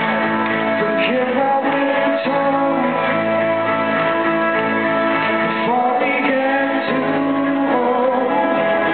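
A man singing live to his own acoustic guitar accompaniment, with the notes held and sliding smoothly from one to the next.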